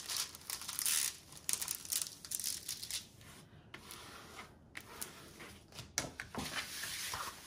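Plastic cover film on a diamond painting canvas crinkling and rustling as a plastic scraper is pushed over it to flatten the canvas, loudest in the first three seconds, then softer rustling with a few sharp clicks.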